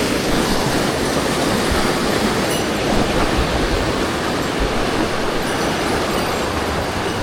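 Mountain stream water rushing steadily over rocks, an even, loud wash of noise.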